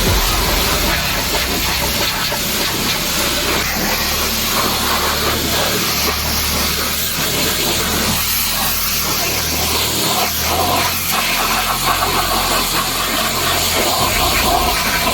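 Pressure washer spraying water, a loud, steady hiss with the motor running underneath.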